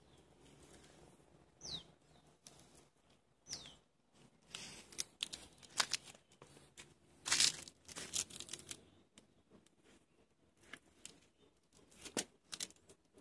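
A bird's short whistled call falling in pitch, heard twice. Then a few seconds of crinkling rustles and sharp clicks from kittens scrambling over dry leaves on the floor, with a few more clicks near the end.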